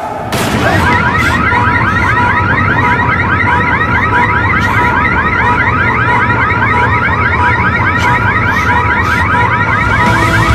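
Fast warbling siren, a rising-and-falling wail repeating several times a second, cutting in abruptly a moment in and sounding steadily.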